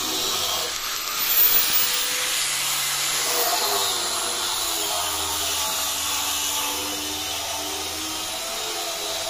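Handheld angle grinder with a sanding disc running steadily against a teak board, a continuous hiss over a faint motor whine, briefly louder about a second and a half in.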